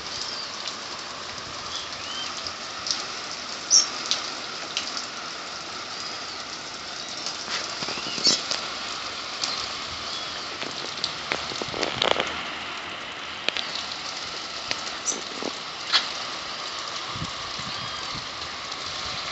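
Steady rain falling, with scattered sharp drip and splash ticks.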